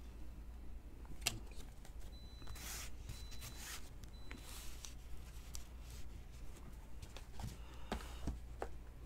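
Faint rustling and flicking of a stack of trading cards being handled and thumbed through, with a few soft clicks near the end.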